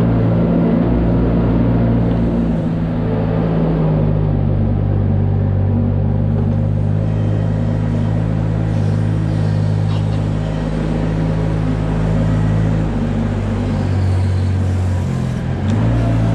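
Compact loader's engine running steadily under way, a low even hum. Its speed drops for a few seconds near the end and then picks up again.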